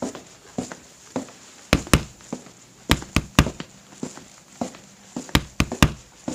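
A percussion rhythm of short knocks, about one every 0.6 s, with groups of two or three sharper, louder hits about two, three and five and a half seconds in.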